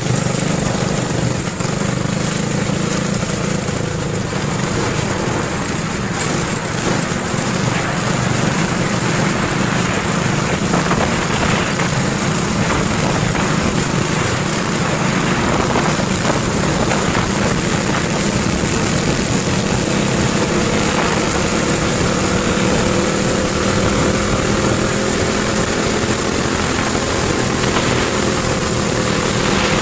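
Small kart engine running at moderate speed, heard from a camera mounted on the kart, with a steady rushing noise over it; the engine note creeps slowly higher over the last several seconds.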